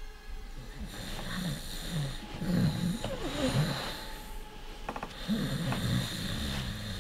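A person snoring: two long snores, the second starting about a second after the first ends.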